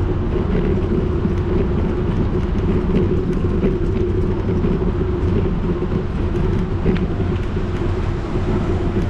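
Steady rolling rumble of a bicycle riding over paving stones, heard through a camera mounted on the bike, with scattered light clicks and rattles.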